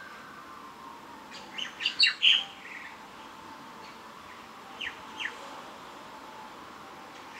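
A bird calling: a quick cluster of sharp chirps between about one and a half and three seconds in, then two short downward-sweeping chirps near five seconds, over faint steady background noise.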